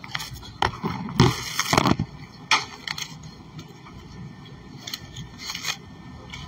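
Handling noise of a phone scraping and knocking against frosty plastic ice cream tubs and packaging in a freezer case: scattered clicks and crackles, with a longer, louder scrape about a second in and another cluster of knocks near the end.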